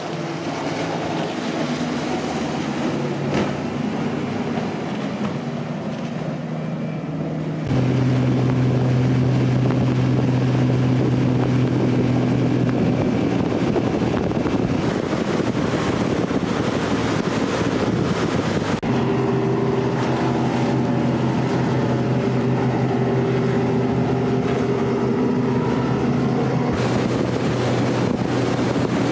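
Engines of a rigid inflatable speedboat running at high speed: a loud, steady drone over the rush of water and wind on the microphone. The engine note jumps abruptly to a different steady pitch three times.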